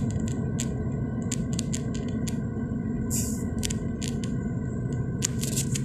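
Steady low road and engine rumble inside a moving car's cabin, with scattered light clicks and a short hiss about three seconds in.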